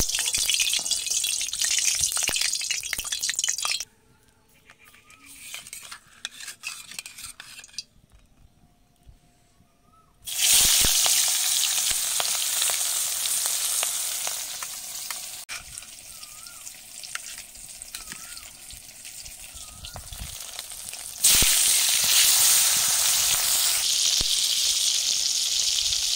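Fish frying in hot oil in an iron kadai, a steady sizzle. The sizzle drops away after about four seconds, starts again suddenly and loudly about ten seconds in, fades slowly, then jumps back up near the end.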